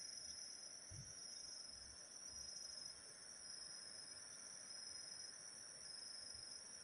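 Faint, steady high-pitched insect chorus, one layer swelling in a slow regular pulse, over a quiet hiss of open-air background.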